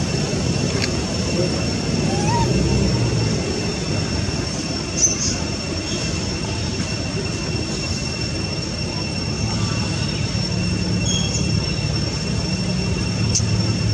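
Steady outdoor background: a continuous high-pitched whine over a low rumble, with a single sharp click about five seconds in.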